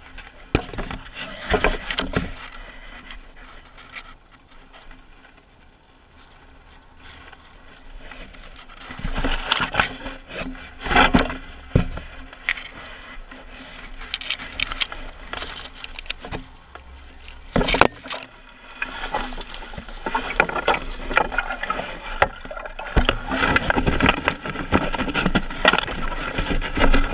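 Handling noise from a camera fixed to a fishing landing net as the net is moved about in a boat: irregular knocks, bumps and rubbing against the net's frame and mesh. Loud clusters of knocks come about a second and a half in, about eleven seconds in and about eighteen seconds in, and the knocking grows busier over the last several seconds.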